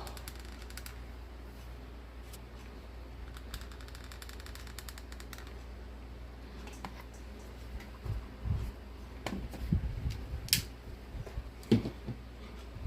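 Hot glue gun and glass snow globe being handled while gluing: scattered light clicks and small knocks, busiest in the second half with two sharp clicks near the end, over a low steady hum.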